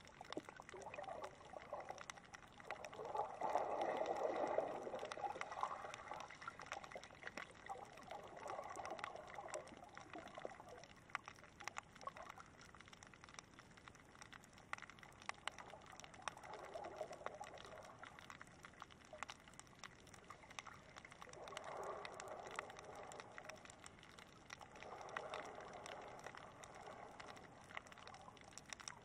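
Water heard from underwater in shallow water: muffled surges of water movement rising and falling every few seconds, strongest about four seconds in, with scattered faint clicks throughout.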